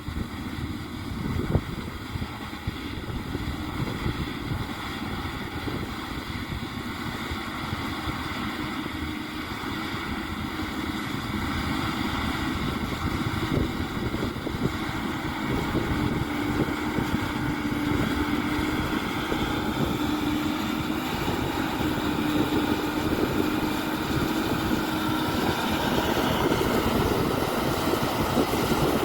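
Tractor engine running steadily while working the field, with a held droning tone, growing gradually louder as it comes closer.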